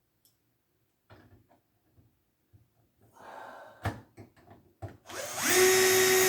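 Power drill driving a screw back in: a few light clicks and knocks of handling, then about five seconds in the motor spins up with a rising whine and holds a steady high pitch.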